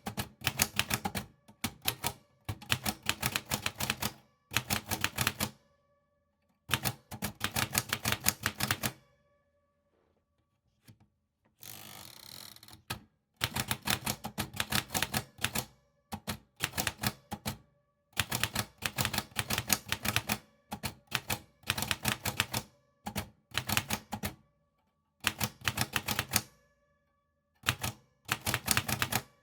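Typewriter keys struck in quick runs of clicks separated by short pauses. A longer quiet gap comes around ten seconds in, followed by a brief scraping slide about twelve seconds in.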